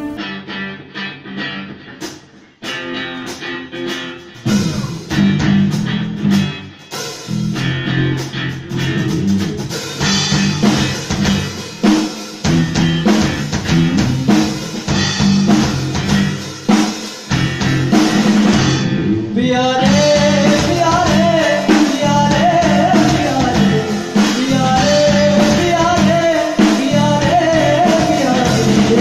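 Rock music with drum kit and guitar: a sparse opening of a few seconds, then the full band comes in with a steady beat, and a high bending melody line rises above it about twenty seconds in.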